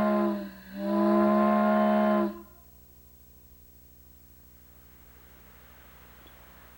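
Six-inch short-bell plain steam whistle blown on compressed air, sounding one deep steady note. About half a second in the note is choked down and sags in pitch, then it blows full again and cuts off sharply after about two seconds, leaving only a faint low hum.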